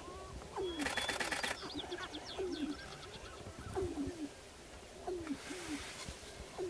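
Displaying male sharp-tailed grouse cooing: short low hoots, each sliding down in pitch, repeated over and over, the courtship calls made with the inflated purple neck sacs. A brief rapid rattle of clicks comes about a second in.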